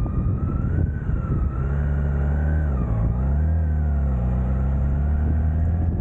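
BMW K1600 GTL's inline-six engine running under way, its pitch dipping about three seconds in and then rising again as the revs drop and pick back up, with a whine that follows the engine speed.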